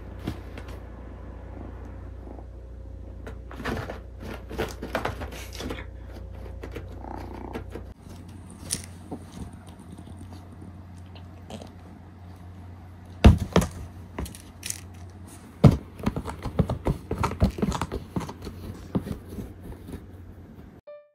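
Kittens playing around a fabric cat bed: scattered scratching and scraping of paws and claws on the bed, with a few sharp thumps, the loudest about 13 and 16 seconds in. A steady low hum sits under the first eight seconds or so.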